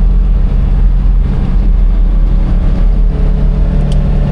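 Polaris Ranger 1000 XP side-by-side's engine running steadily as it drives, heard from inside the cab. A brief click comes near the end.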